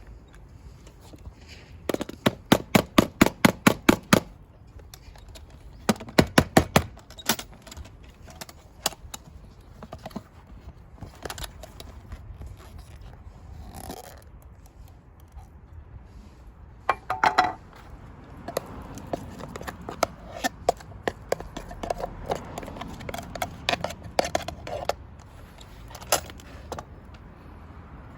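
Metal handling of an aluminium hangō mess tin, the lid being worked open: quick runs of light metallic taps and clanks, about five a second, twice early on, then a short clatter and scattered clinks and scraping.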